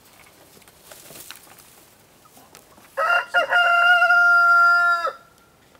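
Rooster crowing once. The crow starts about three seconds in with a broken opening, then holds one loud, steady note for over a second before cutting off.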